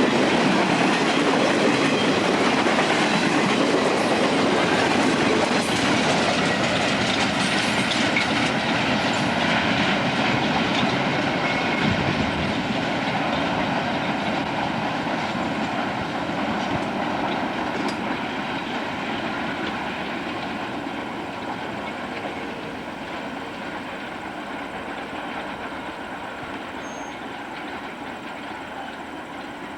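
A train's cars rolling past on the rails, with wheels clicking over rail joints. The sound is loudest at the start and slowly fades as the train moves away.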